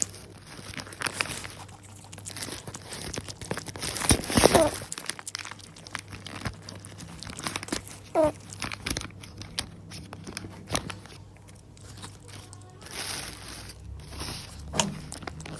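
Irregular crunching and crinkling noises, loudest in a burst about four seconds in.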